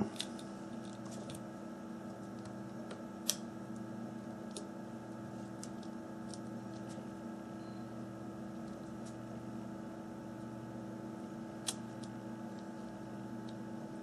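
Steady electrical hum with a few small, sharp clicks and taps of tools against the phone's plastic and metal parts as it is being taken apart; the two clearest clicks come about three seconds in and near the end.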